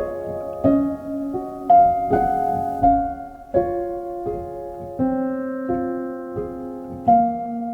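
Background music: a slow, gentle piano melody, its notes struck about every half second and left ringing.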